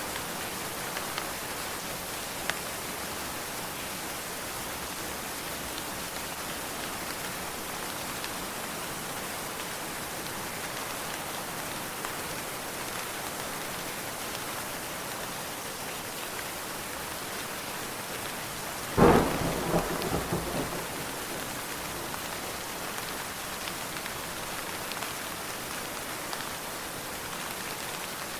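Steady heavy rain, with one sudden crack of thunder about two-thirds of the way through that crackles on for a couple of seconds.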